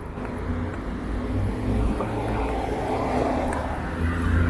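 Street traffic noise: cars driving along the road beside the pavement, a steady low rumble that swells as a car goes by about halfway through.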